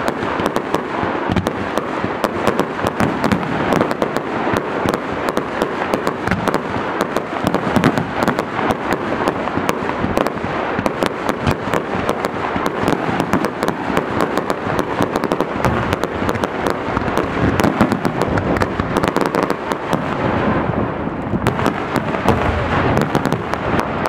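Fireworks display in full barrage: a dense, continuous run of bangs and crackling, shot after shot with no break.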